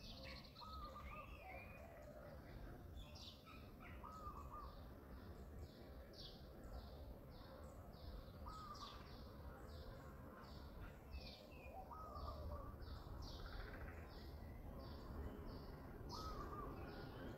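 Faint outdoor wildlife calls: a short rising-and-falling call repeats every few seconds over a steady run of high chirps, about two a second, with a low rumble underneath.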